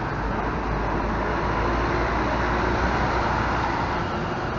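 Marcopolo G8 double-decker coach driving slowly past at close range, its diesel engine rumbling low, then pulling away into the terminal entrance so the rumble eases near the end.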